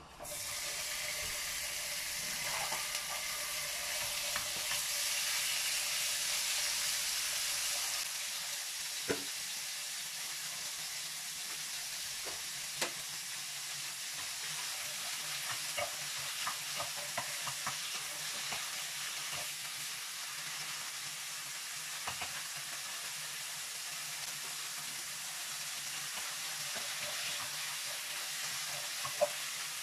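Pieces of raw meat dropped into hot oil in a nonstick wok, sizzling at once and steadily, a little less fiercely after about eight seconds. A wooden spatula stirring them, with scattered knocks against the pan.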